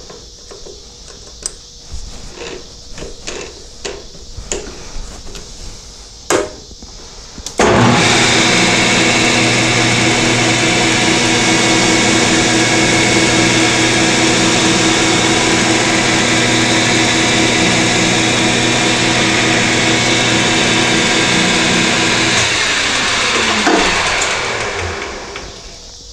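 Metal lathe: handling clicks and knocks as the part is seated in the collet, then the spindle motor starts about seven seconds in and runs at a steady whine during a light facing cut. It is switched off near the end and winds down, falling in pitch.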